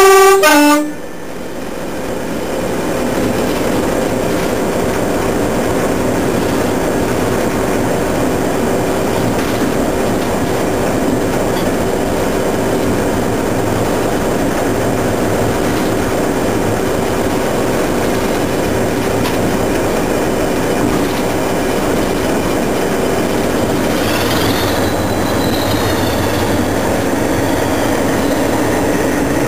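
Locomotive horn sounds briefly right at the start, then the locomotive runs steadily along the track, engine and wheel noise heard from inside the cab. A faint high squeal rises and falls near the end.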